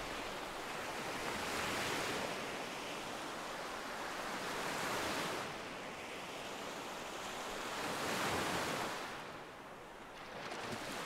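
Great Lakes waves washing onto a pebbly shore, a surge of surf every three seconds or so.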